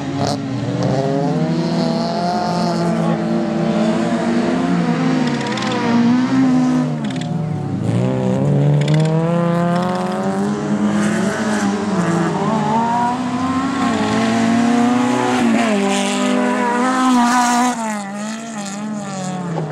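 Autocross race car engines revving hard on a dirt track, their pitch repeatedly rising and falling through gear changes as more than one car runs at once.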